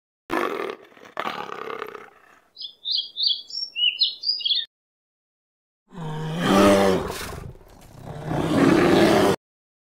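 Two rough roars from a leopard in the first two seconds. Then a run of short, high hummingbird chirps. Then a long, loud brown bear roar from about six seconds in, which cuts off abruptly near the end.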